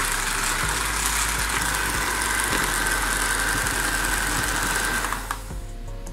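Electric hand mixer running at medium speed with a steady whine, beating egg whites and sugar for French meringue; it stops about five seconds in.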